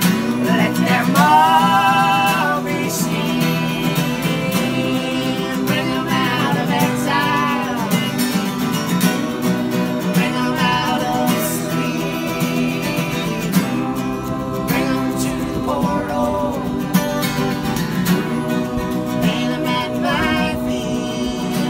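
Two acoustic guitars strummed under a lead singing voice with a wavering vibrato, with a group of voices singing along in harmony.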